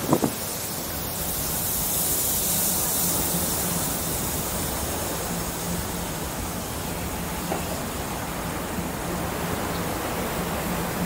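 Steady outdoor noise of wind on the microphone and the open harbour, with a low steady hum joining about two seconds in.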